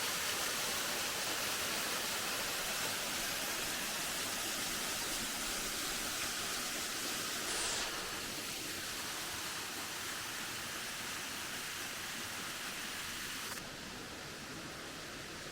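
Steady rush of flowing water, heard as an even hiss. It turns quieter and duller shortly before the end.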